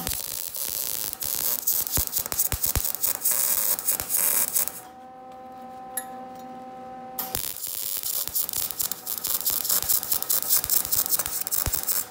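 MIG welder arc crackling as it welds a steel exhaust pipe, in two runs of about five seconds each. In the pause between them only a steady hum remains.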